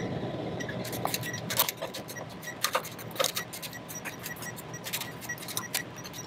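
Ratcheting torque wrench and hand tools clicking and clinking irregularly on metal while the oil pan bolts are tightened to 7 foot-pounds.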